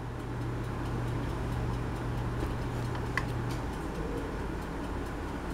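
Room tone: a low steady hum under a faint even hiss, with a few light ticks. The hum stops about three and a half seconds in.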